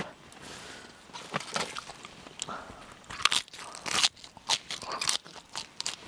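Crisp crunching of raw food: a string of irregular sharp snaps and crackles, louder in the second half.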